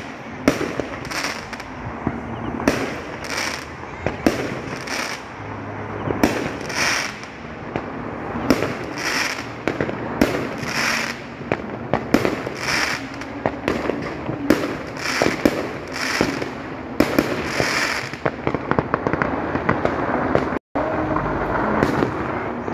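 Fireworks going off: a dense run of sharp bangs, about two a second, from bursting aerial shells and firecrackers, with crackling between them. The sound cuts out for an instant near the end.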